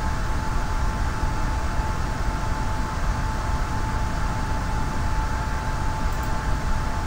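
Steady hiss and low rumble from an open microphone line in a video call, with a constant thin tone running through it.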